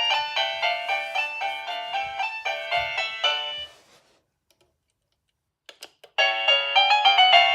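Electronic doorbell chime playing a fast tune of bright, piano-like notes that fades out about halfway through. After a short silence come a few quick clicks, and then the next chime tune starts.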